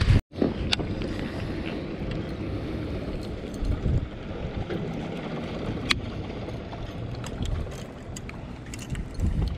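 Wind buffeting the microphone over small waves lapping at a kayak, with a few light clicks from handling a baitcasting reel and lure. The sound cuts out for a moment just after the start.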